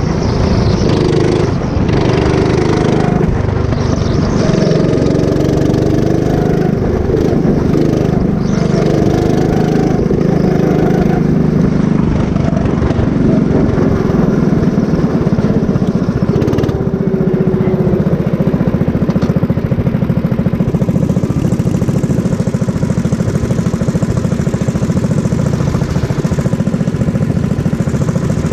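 Go-kart engine heard up close from the kart, its revs repeatedly rising and falling as it accelerates and lifts through the corners. For the last ten seconds or so it runs at a steadier, even pitch.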